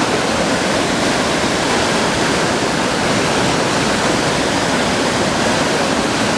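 Rainbow Falls waterfall pouring steadily, a loud, even rush of falling water with no change.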